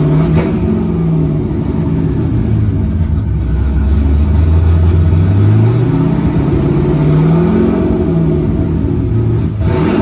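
LS-series V8 engine revved. Its note slides slowly down over the first few seconds, climbs again about six seconds in, then falls back. It runs clean without breaking up, its misfire cured by rebuilt fuel injectors.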